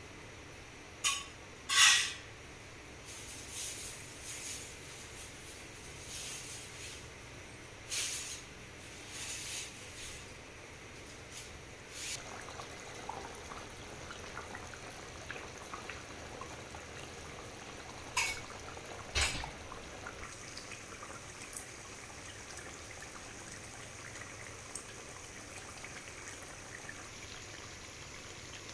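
Chicken gravy boiling in an aluminium kadai over a gas burner: bubbling and spattering pops, with a few sharper clicks, the loudest about two seconds in and again around eighteen to nineteen seconds in.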